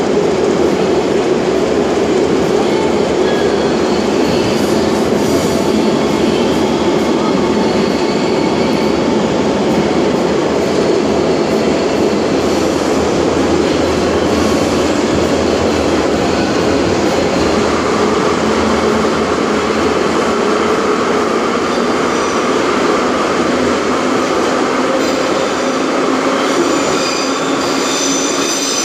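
Ezh3 (Em-508T) metro car running at speed through a tunnel, heard from inside the car: a loud, steady rumble of wheels and running gear. Partway through, a motor whine joins in and rises slightly in pitch, and thin high wheel squeals come in near the end.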